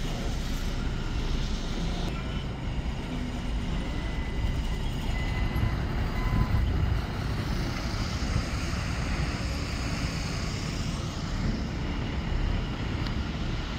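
Diesel engine of a tractor unit hauling a 40-foot container trailer, running steadily with a low rumble as the rig manoeuvres slowly.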